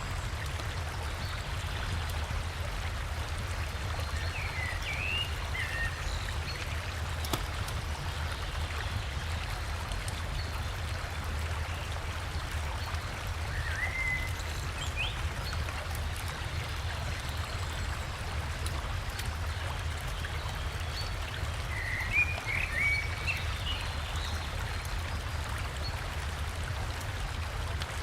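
Steady rush of a river with a small waterfall, with short bird chirps breaking in a few times, the loudest cluster near the end.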